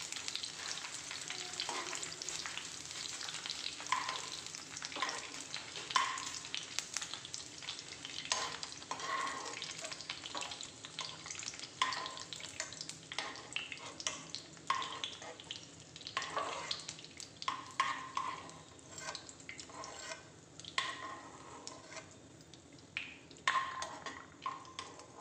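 Cashews and raisins sizzling in hot ghee in a non-stick pan, with a metal spoon scraping and clicking against the pan about once a second as the nuts are scooped out. The sizzle thins and gets quieter toward the end as the pan empties.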